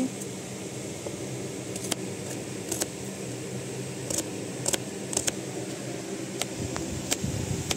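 Kitchen knife slicing red onions on a plate, with scattered sharp clicks as the blade meets the plate, over a steady background hum.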